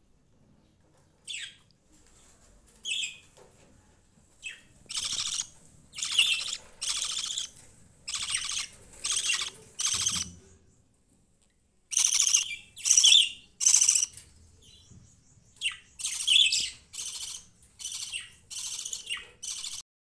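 Budgerigars calling: a couple of short chirps, then from about five seconds in a fast run of harsh, raspy chirps and squawks, each under half a second, with a brief pause midway.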